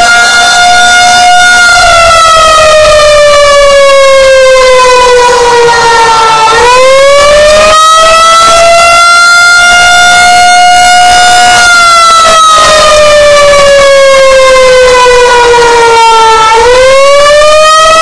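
Pole-mounted rotating outdoor warning siren sounding during a test, very loud. Its single tone with many overtones sinks slowly in pitch over several seconds and then swings quickly back up, twice, as the horn turns on its pole.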